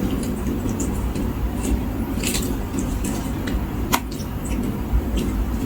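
Close-up eating sounds: wet squishing and crackles of food handled by hand and chewed, with a sharp click about four seconds in, over a steady low rumble.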